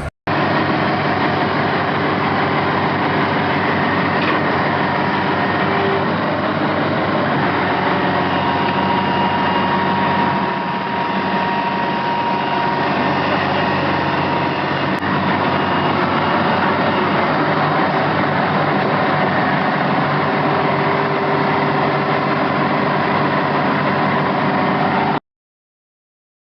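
Diesel engines of a vintage Hopto H1900 hydraulic excavator running steadily while it digs. A faint steady whine sits over the engine noise. The sound cuts out abruptly about a second before the end.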